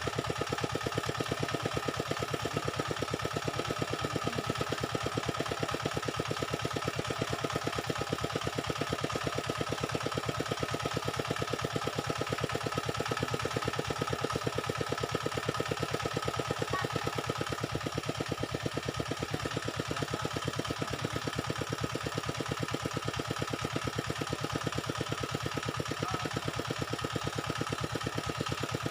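A small engine running steadily at idle, with a fast, even pulse and no change in speed.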